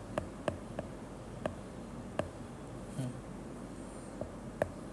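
Stylus tip tapping and writing on a tablet's glass screen: a handful of sharp, irregularly spaced clicks over a low steady background hiss.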